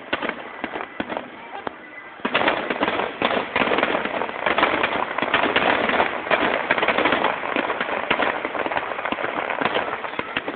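Fireworks finale barrage: many shells bursting and crackling in quick succession, sparser for the first couple of seconds, then a near-continuous rapid volley.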